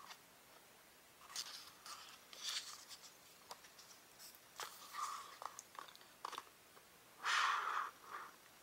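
Paper pages of a small book being turned and smoothed by hand: faint rustles and soft clicks, with a louder page rustle near the end.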